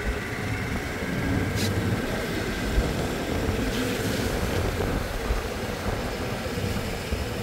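Steady rumble and road noise of a vehicle driving along a road, heard from aboard.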